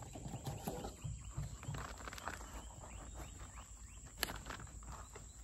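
Gloved hand scooping potting mix out of a plastic bag: soft irregular rustling of the bag and crunching of the mix, with a single sharp click about four seconds in.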